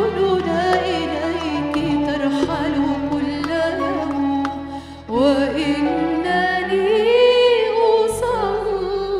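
A woman singing an ornamented Arabic hymn line into a microphone over sustained instrumental accompaniment, with a short break about five seconds in before the next phrase.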